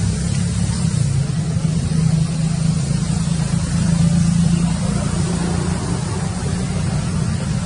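A steady low engine rumble, swelling slightly about four seconds in.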